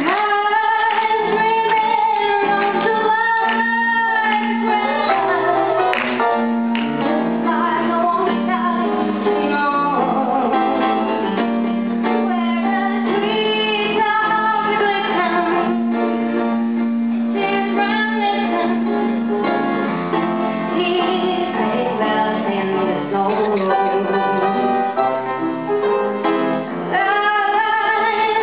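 A female solo singer sings a song into a microphone over an instrumental accompaniment, amplified in a large hall.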